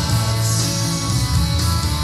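Rock music with guitar and a steady bass line, played back from a cassette on a Technics RS-D400 stereo cassette deck.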